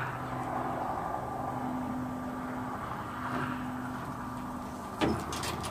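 Steady low hum of a running engine, with a sharp clank of steel chain on the trailer deck about five seconds in, followed by quick rattling clinks.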